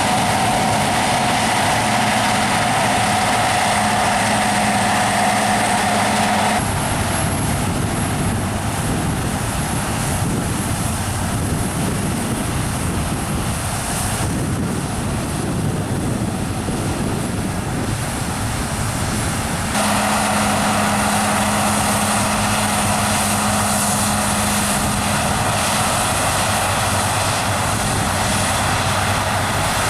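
Combine harvester running steadily under load, a continuous heavy machine drone with a steady hum. The sound changes abruptly twice, as the recording cuts between machines or positions.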